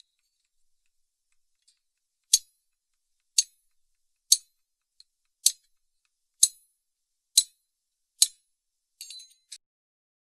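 Sharp, ringing metal-on-metal clinks as a steel pharsa axe head and its collar are worked onto a wooden haft. Seven strong clinks come about one a second, followed by a quick rattle of lighter clinks near the end.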